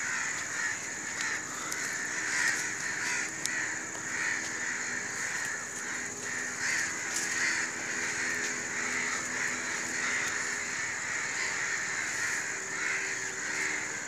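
Many crows cawing over one another in a continuous, pulsing chorus, with a steady high-pitched hiss underneath.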